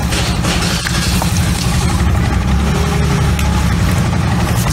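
A motor running steadily with a low rumble, with a few light knocks and scrapes from a hoe working wet clay.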